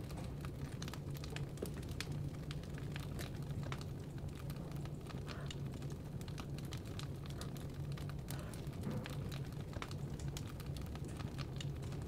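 Burning firewood crackling: irregular sharp pops and snaps over a steady low rumble.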